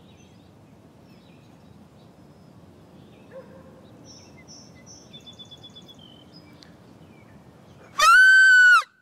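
Quiet outdoor background with a few faint bird chirps, then a loud high-pitched tone with a slight rise and fall, lasting under a second, near the end.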